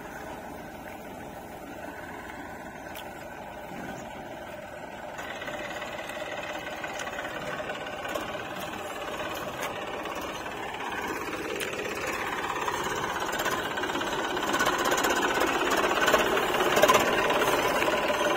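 Eicher 380 tractor's diesel engine running with a knocking beat, growing steadily louder as the tractor drives closer.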